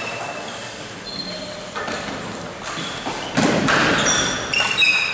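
Ball hockey play on an indoor court: sticks and ball knocking, with a loud thump about three and a half seconds in and short high squeaks scattered throughout.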